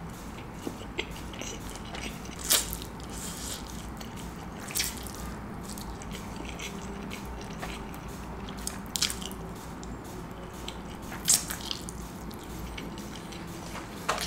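Close-miked eating sounds: Korean noodles slurped off chopsticks and chewed, with short, sharp wet smacks every few seconds.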